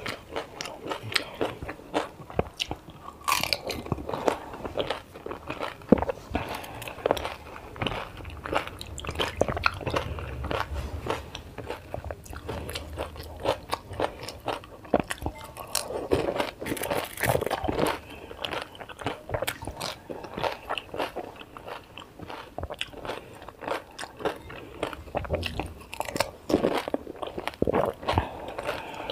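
A person eating close to the microphone: a quick, irregular run of biting and chewing crunches that goes on without a break.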